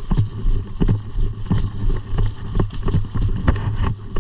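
Footsteps of a person moving quickly over the woodland floor, heavy thuds about two a second, over a steady low rumble of wind on the microphone.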